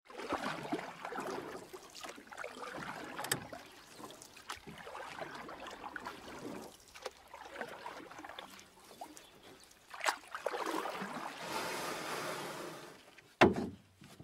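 Kayak paddle strokes in water: splashing and trickling that swell and fade every two to three seconds, with a sharp knock near the end.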